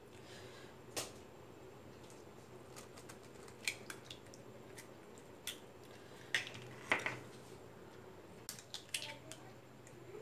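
Eggs being cracked into a glass bowl of chopped onion and chilli: scattered short clicks and taps of shell and glass, loudest about six to seven seconds in and again near the end.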